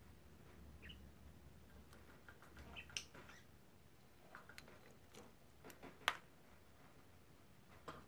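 Faint, scattered clicks and small scratching sounds from a peach-faced lovebird in its cage. The sharpest click comes about six seconds in.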